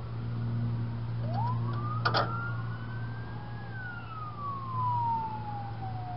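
A siren wailing, one slow rise and then a long fall in pitch, over a steady low hum. A single short metallic click comes about two seconds in.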